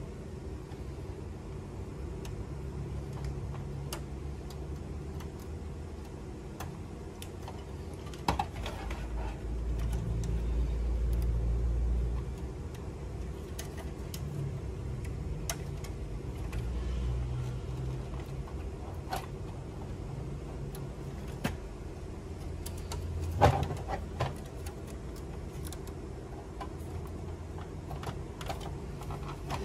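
Hands working on the plastic parts of a Canon inkjet printer as it is put back together: scattered clicks, taps and rattles over a steady low rumble, with a sharper knock about three-quarters of the way through.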